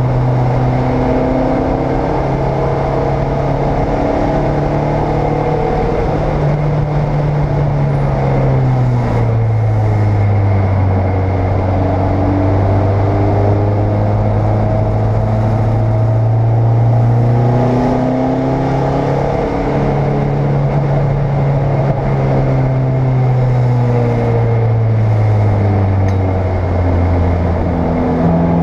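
Race car engine heard from inside the cockpit, pulling hard around the track. Its pitch slides up and down and drops in steps, notably about ten seconds in and again near the end.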